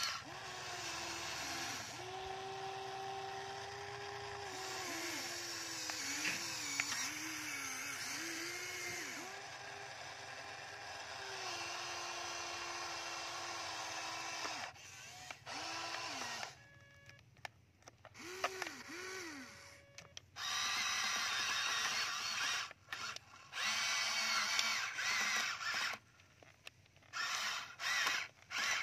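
Electric motors of a Huina radio-controlled toy excavator whining as it works its boom, arm and bucket, the pitch dipping and rising as each movement starts and stops. The whine is steady for about the first fifteen seconds, then comes in short runs with pauses between.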